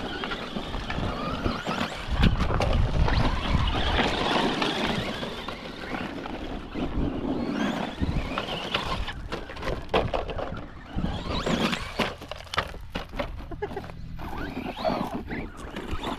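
Radio-controlled truck driving over rough ground: motor whine rising and falling with the throttle, tyre and gravel noise, and, in the second half, many short knocks and clatters of the chassis hitting the ground.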